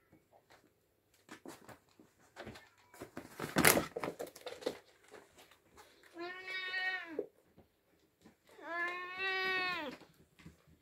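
Scattered light rustles and taps, with a brief loud rustle about three and a half seconds in. Then an oriental cat meows twice, two long drawn-out calls of about a second each, the second a little longer, each dropping in pitch at the end.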